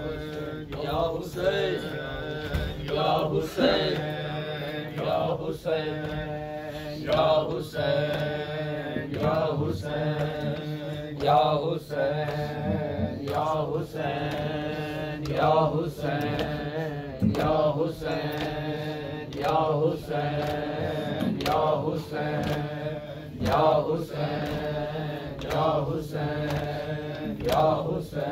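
Congregation of mourners chanting a noha together in a steady rhythm, with a sharp beat about once a second from matam chest-beating.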